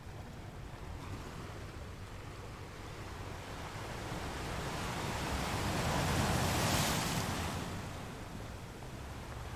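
Sea waves on a shore: one wave swells up, breaks about six to seven seconds in with a hiss of surf, and washes back out over a steady low rumble of the sea.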